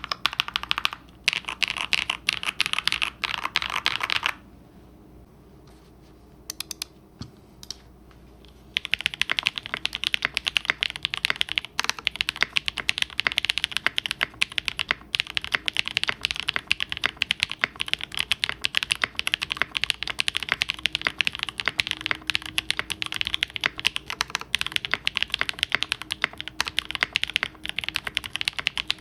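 Mechanical keyboard fitted with lubed Singularity linear switches (aluminium-plated housings) being typed on quickly. About four seconds in, the typing pauses for roughly four seconds, with only a few single key presses. Then steady fast typing resumes.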